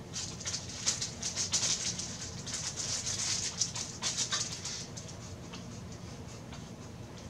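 Clear plastic wrapping on tripod legs crinkling and rustling as it is gripped and handled, a dense crackle that dies away about five seconds in.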